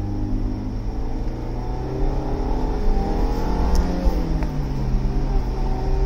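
A road vehicle's engine running under way over a low road and wind rumble. Its pitch climbs from about two seconds in and drops back again a little after four seconds.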